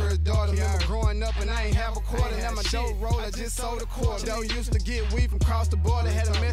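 Hip hop track with rapping over a deep sustained bass line and sharp drum hits.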